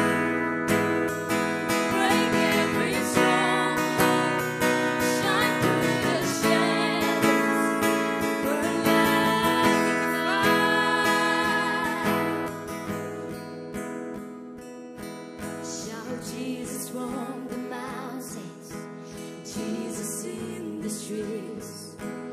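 Acoustic guitar strummed as accompaniment to two women singing a worship song. The music drops noticeably softer about twelve seconds in.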